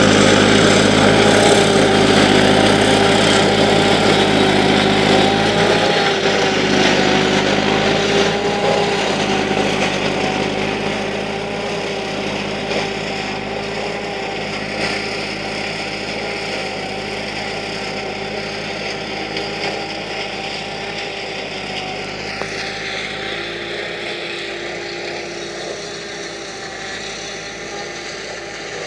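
Small tractor running a tractor-mounted forage harvester chopping maize for silage: a steady engine and cutter drone that fades gradually as the rig moves away. Near the end a high whine drops a little in pitch.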